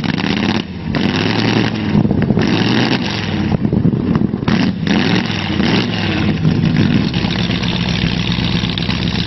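Hot rod engine revved hard again and again, rising and falling in several surges with brief lifts off the throttle, while its exhaust spits flames that set a shrub alight behind the car.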